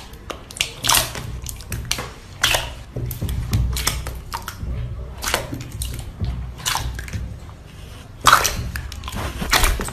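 Slime being poked, pinched and squeezed by hand in a plastic tub, giving irregular wet clicks, pops and squelches, with a louder burst of them near the end.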